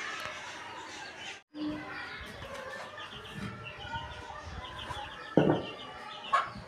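Chickens clucking and small birds chirping over and over, with two loud, dull knocks near the end as fired clay bricks are set down on a dirt floor.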